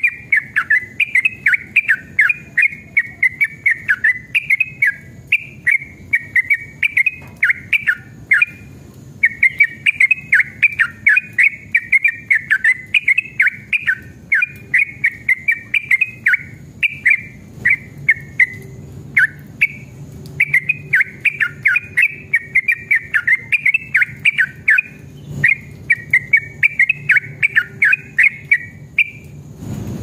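Yellow-vented bulbul singing a long, rapid run of chattering notes, many to the second, with a few short breaks and some slower, spaced notes about halfway through.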